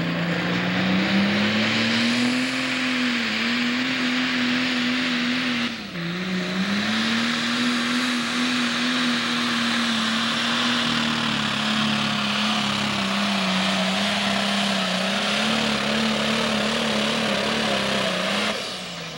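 Pro Stock pulling tractor's turbocharged diesel engine at full throttle under the load of a weight-transfer sled, its pitch holding steady with a brief dip about six seconds in. Near the end the engine note falls away as the pull ends.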